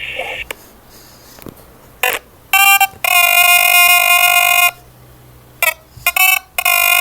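A voice calling 'eskici', the Turkish junk dealer's street cry, processed by an electronic effect into flat, ringtone-like tones. The call comes as two short notes and a long held one, then starts again about two-thirds of the way in.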